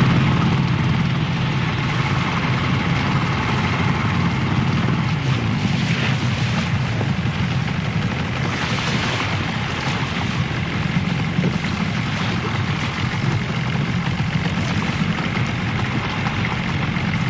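A motor running steadily: a low, even hum under a wash of wind- or water-like noise, starting abruptly.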